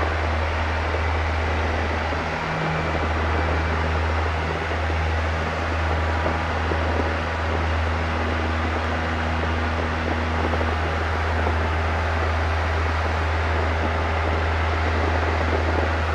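Single-engine light airplane's piston engine and propeller droning steadily during the climb-out after takeoff, heard inside the cockpit.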